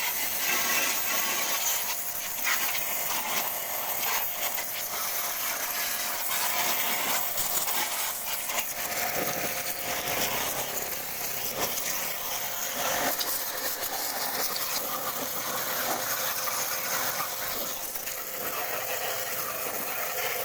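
Continuous scrubbing and rubbing on a washing machine's door and seal: a rasping hiss made of many short strokes.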